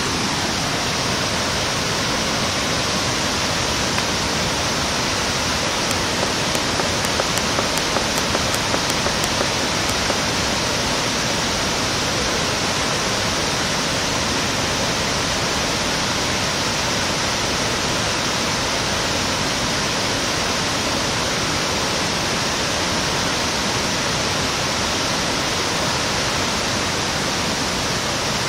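Steady, loud rushing of flowing river water, with a few faint clicks between about six and ten seconds in.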